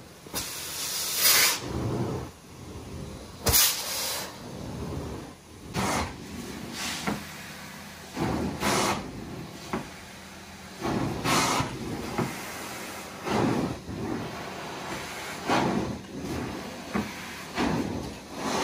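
Carpet-cleaning extraction wand hissing in repeated strokes across the carpet, a short burst every second or two over a steady machine background.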